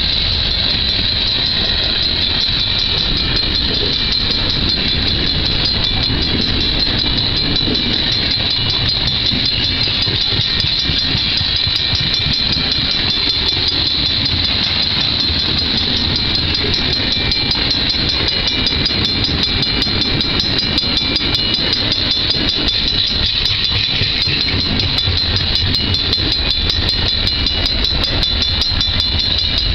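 Freight cars (tank cars, boxcars and gondolas) rolling steadily past close by, with continuous low rumble and wheel clatter. A steady high-pitched tone runs over it.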